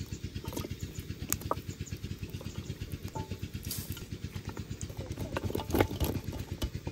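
A small engine idling with a steady, rapid putter of about eight beats a second. Over it come a few light knocks as bones and cut vegetables are dropped into a metal pot, the loudest shortly before the end.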